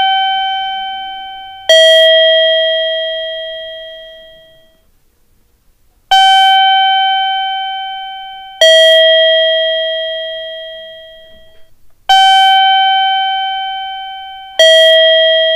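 Two-tone electronic 'ding-dong' chime: a higher note, then a lower one, each struck and slowly dying away, the pair repeating about every six seconds. This is the guidance chime sounded at Japanese station ticket gates to lead visually impaired passengers.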